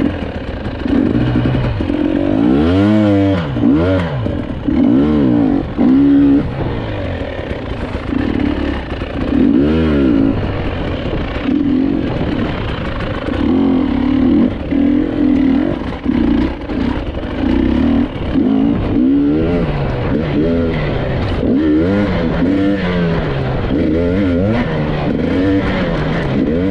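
GASGAS EC 300 TPI two-stroke enduro motorcycle engine revving up and down over and over as the rider works the throttle on a dirt trail, with clatter from the bike over rough ground.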